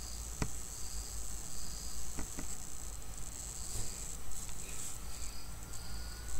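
Insects chirping in irregular pulses over a steady high hiss, with a low hum beneath. Sharp clicks cut through: one early on, then a quick double click about two seconds in, fitting a computer mouse being clicked.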